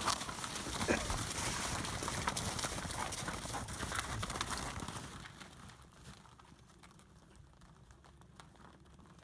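A herd of Caspian mares milling close together on frozen, snowy ground, with the scuffing and knocking of many hooves and some rustling. About five seconds in it drops away to a faint background.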